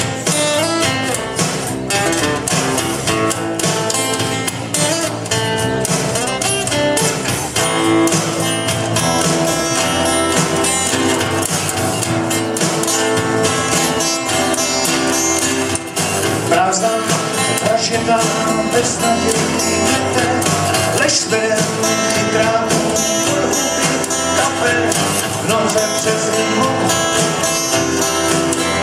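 Live song played on two amplified acoustic guitars, strummed and picked, with a man singing over them through PA speakers.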